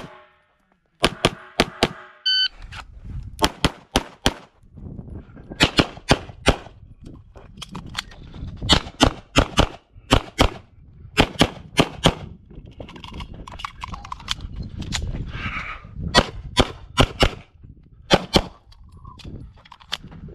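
Rapid pistol fire from a CZ Shadow 2 9mm, heard from the shooter's position: dozens of sharp shots, mostly in quick pairs and short strings with brief pauses between.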